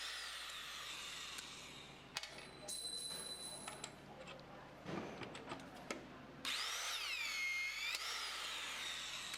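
Electric shear wrench tightening twist-off tension-control bolts: its motor whine swings up and down in pitch and drops away for a few seconds in the middle, where a few sharp clicks sound, then comes back louder near the end. The wrench runs each bolt until its splined tip shears off.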